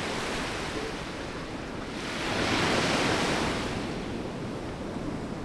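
Ocean surf washing onto a beach: a steady hiss of waves, with one wave swelling about two seconds in and then fading away.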